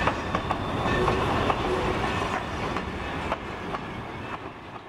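Freight cars rolling past on the track, the wheels clicking irregularly over the rail joints over a steady rumble. The sound fades out gradually.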